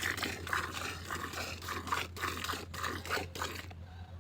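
A cow being milked by hand: jets of milk squirting into a pail in short, irregular spurts.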